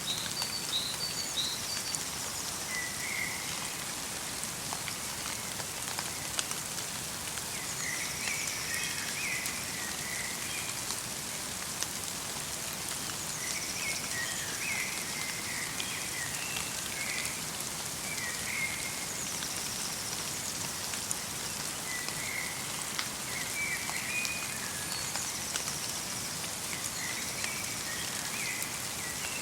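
Light rain falling steadily in a forest, with fine drops ticking. A small songbird repeats short twittering phrases every few seconds.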